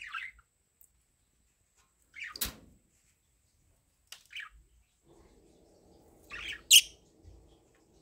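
Budgerigars giving short, separate chirps and squawks every couple of seconds, the loudest a sharp squawk near the end.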